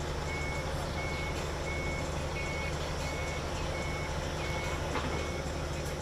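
A high electronic beep repeating evenly, about three beeps every two seconds, over a steady low hum; the beeping stops near the end.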